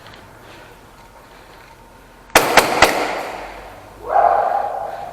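Airsoft gunfire in an echoing indoor arena: about halfway through, three sharp loud cracks come in quick succession and ring out with a long tail. A second loud, mid-pitched sound follows about a second later.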